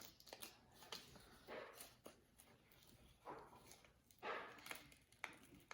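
Faint scratching and tapping of a marker drawing short strokes on paper, in several brief swishes with small clicks between them.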